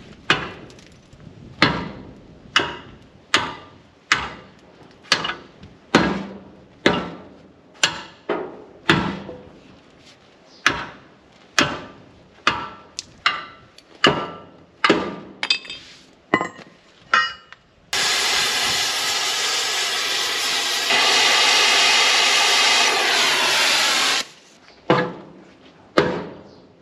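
Heavy 14-pound sledgehammer striking metal: a long run of ringing blows, a little more than one a second and quickening slightly. Then a power tool runs steadily for about six seconds, getting louder partway through, and stops abruptly, followed by a few more hammer blows.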